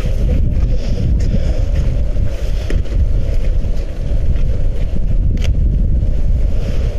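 Wind buffeting the microphone: a loud, fluttering low rumble. A few sharp clicks from the camera being handled in gloved hands.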